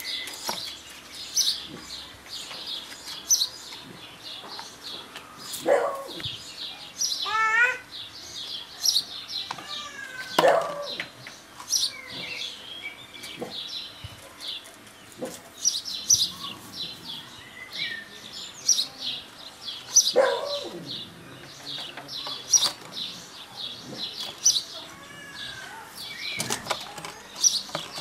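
Small birds chirping over and over, many short high chirps, with a few louder falling calls every several seconds and a brief warbling trill twice.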